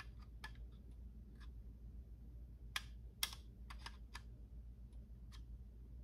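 Scattered light clicks and taps, about eight in all with a small cluster in the middle, as a digital dial bore gauge is handled and set against a micrometer, over a low steady hum.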